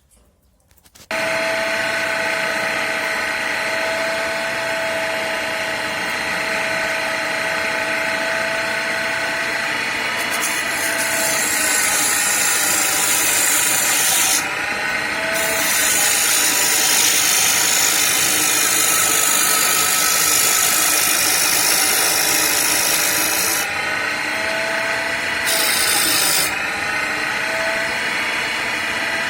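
Homemade wood lathe running with a steady motor whine while a chisel cuts into the spinning wooden blank with a loud scraping hiss. It starts abruptly about a second in, and the cutting hiss drops out briefly twice, about halfway and about two-thirds through.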